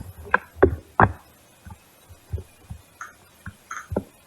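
Airsoft rifle firing single shots as suppressing fire: three sharp pops in the first second, then a run of fainter, irregularly spaced thumps.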